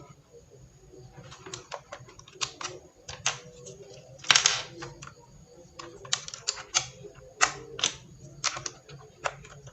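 Keys of a DA Meca 6 Plus mechanical keyboard with Outemu switches pressed one at a time in an uneven rhythm: a test of newly fitted switches. One clack about four and a half seconds in is louder than the rest.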